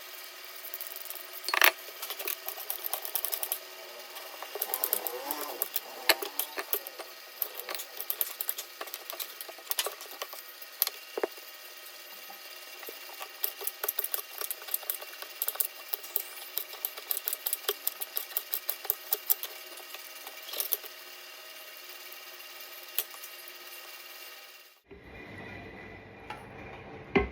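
Food-preparation sounds: many sharp, irregular clicks and knocks over a steady faint hum, which cut off suddenly near the end.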